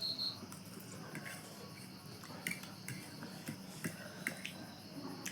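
Eating sounds: scattered wet mouth clicks and smacks with an occasional light utensil click.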